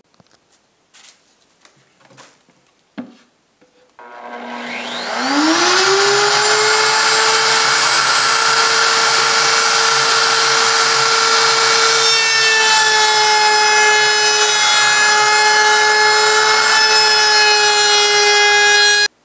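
A few light knocks, then about four seconds in a router mounted in a router table starts, its whine rising as it spins up, and runs steadily at full speed while a plywood edge is fed past the bit for a roundover. The tone shifts about twelve seconds in, and the sound cuts off suddenly near the end.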